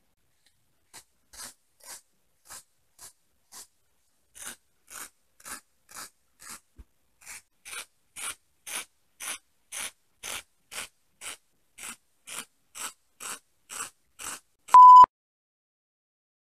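A cat's tongue licking the inside of a plastic cone collar: rhythmic rasping licks, about two a second, getting louder partway through. Near the end a short, loud, steady beep cuts in.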